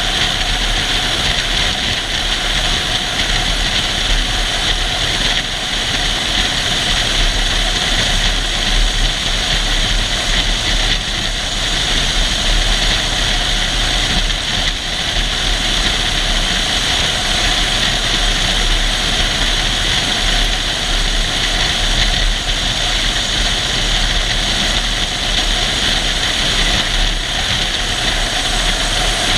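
Jeep engine and driving noise, a steady loud rumble and hiss that runs on without pause while crawling off-road.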